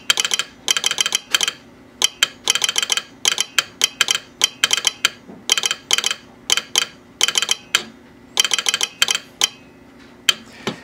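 A telegraph straight key and sounder clicking out American Morse code in quick runs of sharp metallic clicks with short pauses between them. The clicking stops shortly before the end.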